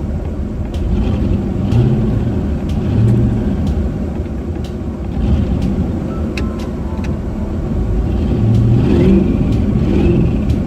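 Twin-turbo LS V8 engine in a Mazda RX8 running and revving in short surges, heard from inside the car, as the car sits stuck in deep snow.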